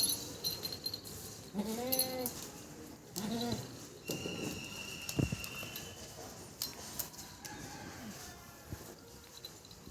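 Goat bleating twice, two short wavering calls about a second and a half apart.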